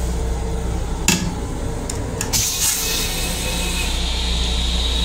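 Steady low hum inside a Long Island Rail Road M7 railcar restroom, with a sharp click about a second in and a few more around two seconds in. After that a hiss with a faint high whistle builds and keeps going.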